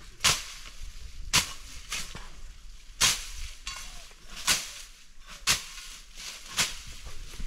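Repeated sharp impacts, about one a second and slightly irregular, over a steady outdoor background.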